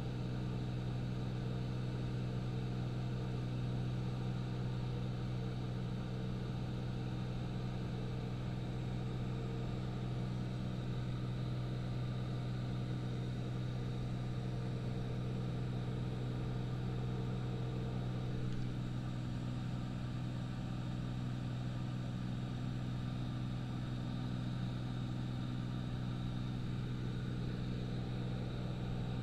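Light aircraft's engine and propeller droning steadily in cruise flight. A higher note within the drone drops out about two-thirds of the way through.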